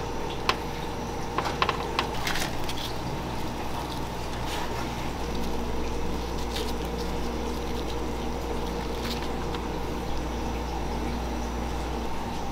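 Steady hum and hiss of kitchen equipment, with a few light clicks and taps in the first couple of seconds as gloved hands set food on a metal wire rack.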